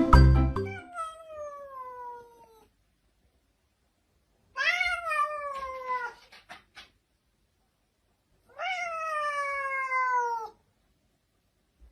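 A cat giving three long, drawn-out meows a few seconds apart, each sliding down in pitch.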